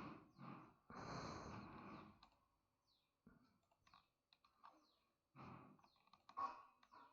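Faint computer mouse clicks and keyboard taps while software is operated, with a soft breath about a second in.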